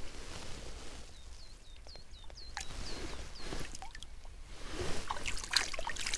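Water dripping into the shallow lake in a quick run of small, high plinks as a perch is let go by hand. Near the end, hands splash as they are rinsed in the water, a little louder.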